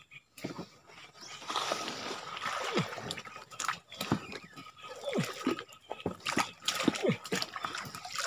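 Swamp water splashing and sloshing as a large wire-mesh fish trap is shifted and hauled through it, with many small plops and drips. It starts about a second and a half in and keeps going.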